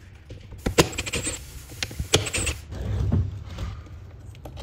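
Hand tools unscrewing the T20 Torx screws that hold a factory subwoofer in its plastic enclosure: a few sharp metallic clicks and clinks, the loudest about a second in and again about two seconds in, with short runs of small fast ticks.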